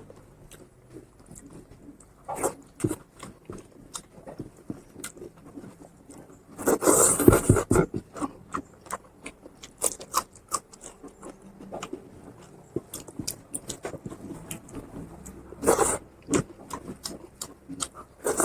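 Close-up chewing and wet mouth clicks of a person eating fatty pork curry and rice, with a louder noisy burst of slurping or crunching about seven seconds in and a shorter one near the end.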